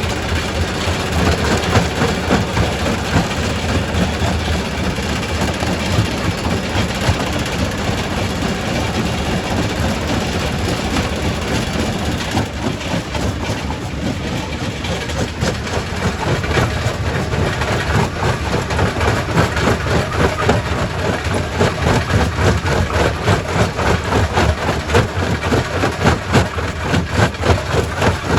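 Quarry primary rock crusher running, with a steady low machine drone under a continuous clatter of knocks and cracks as stone is broken. The knocks grow denser and more regular in the second half.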